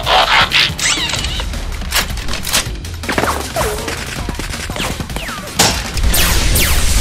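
Sound-effect blaster fire: a rapid volley of shots with falling-pitch laser zaps, over background music.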